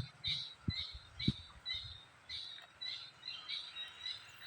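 A bird calling over and over in short chirps, about three a second, with a couple of soft low knocks in the first two seconds.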